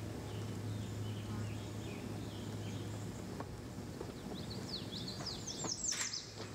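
Backyard ambience: birds chirping, with a quick run of short falling chirps near the end, over a steady low hum. A few sharp clicks come near the end.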